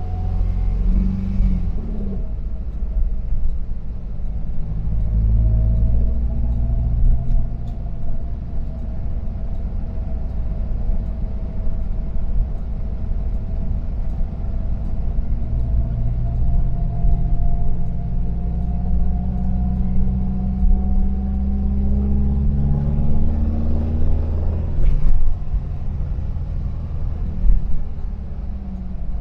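The air-cooled flat-four engine of a 1973 VW Devon camper van (VW T2) running under way, with road rumble. Its note climbs slowly as the van gathers speed, then drops back sharply after about twenty-four seconds, with a short click or knock there.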